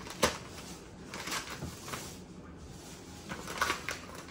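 A paper gift bag rustling and crinkling as a hand rummages inside it and pulls at its contents, in irregular short crackles with a sharp crinkle about a quarter-second in and another few near the end.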